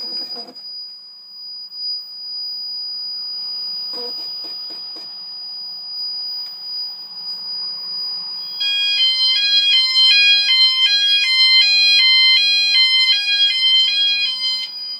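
EMS FirePoint 5000 fire alarm sounders going off after activation. A little past halfway a loud electronic alarm starts, stepping between pitches about twice a second, and cuts off just before the end. Before it there is a steady high-pitched tone, a soft hiss and a couple of clicks.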